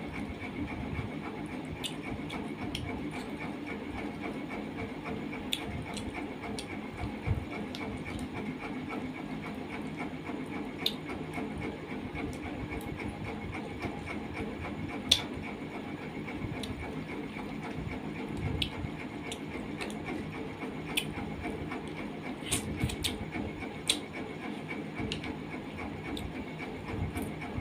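Chewing and lip-smacking of a person eating rice and curry with her fingers, with sharp mouth clicks scattered throughout, over a steady background hum.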